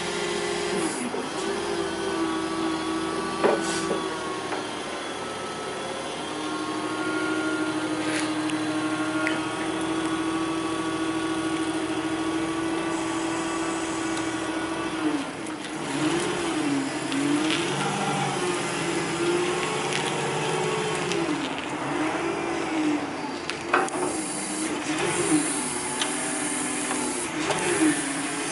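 Cat GP50K LPG counterbalance forklift running, its engine holding a steady pitch while the mast comes down. From about halfway it revs up and down over and over as the truck is driven and manoeuvred, with a few short clunks.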